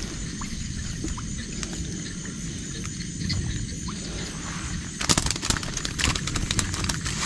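Outdoor night ambience by floodwater: a steady low rush with a constant thin high trill over it. About five seconds in comes a run of sharp knocks and crackles.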